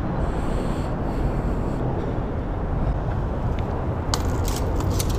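Steady low rumble of highway traffic on the bridge overhead, echoing under the concrete deck. From about four seconds in, a run of short crackles as leafy plants brush and rustle against the camera.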